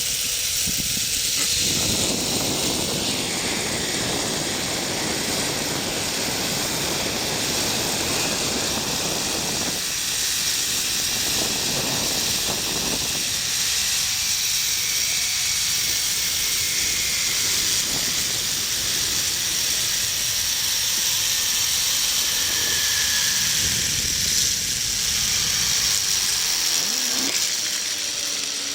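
Zipline trolley pulleys running along a steel cable, a steady loud hiss with a constant high whine, mixed with wind rushing over the microphone.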